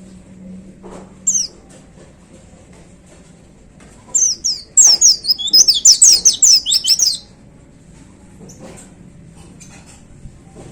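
White-eye (pleci) singing: a single short high note about a second in, then a loud burst of about three seconds of rapid, high, downward-sweeping notes.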